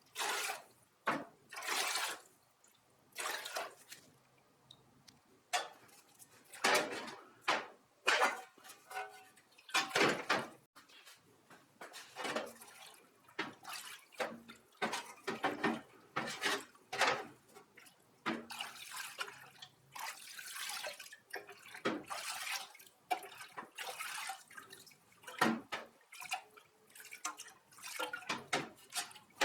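Water splashing and dripping in irregular bursts, as when something is rinsed or washed in a sink.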